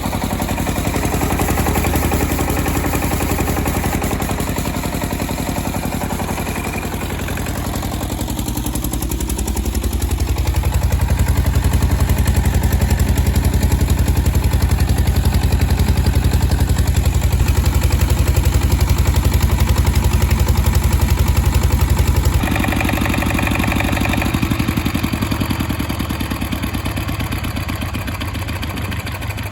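Homemade diesel generator's SD1110 single-cylinder diesel engine running steadily with an even rapid beat. The sound rises in pitch briefly and grows louder about a third of the way in, then drops back abruptly about three-quarters through.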